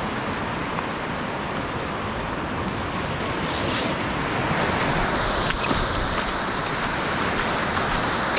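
Surf washing over a sandy beach: a steady rush of breaking waves that grows a little louder about halfway through.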